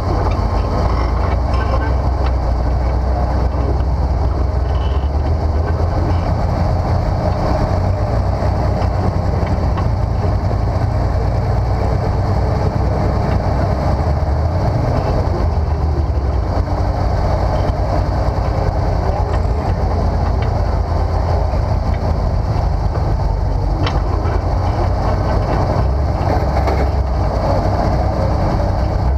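Off-road rock crawler's engine running steadily under load as it climbs a steep rock ledge: a continuous low rumble.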